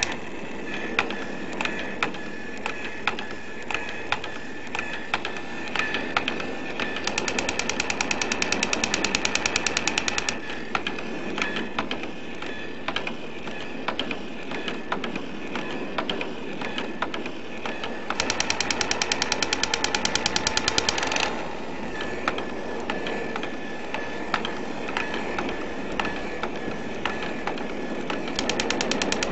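Bursts of rapid automatic gunfire, each about three seconds long, twice and again near the end, over a steady hiss with scattered single cracks.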